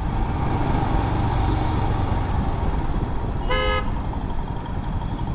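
Royal Enfield Himalayan single-cylinder motorcycle engine running on the move, with steady road and wind noise. A vehicle horn toots once, briefly, a little past halfway.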